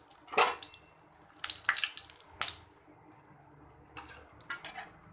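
Bay leaves and dried red chillies frying in hot mustard oil in a kadai: irregular crackles and spits, a few sharp pops spread out with quieter gaps between them.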